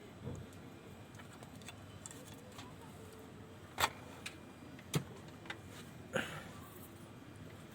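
A few sharp clicks and small taps, three louder ones about a second apart past the middle, over a faint quiet background.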